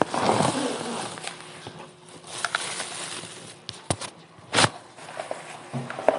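Handling noises: irregular rustling with several sharp clicks, the loudest about four and a half seconds in.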